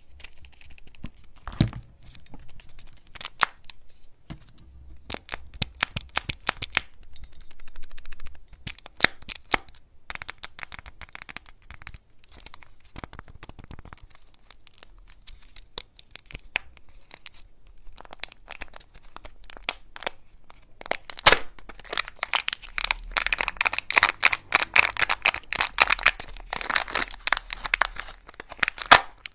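Foil wrappers of Kinder Joy eggs crinkling and tearing as they are peeled off by hand, with scattered sharp clicks and taps. The crinkling becomes dense and louder in the last several seconds.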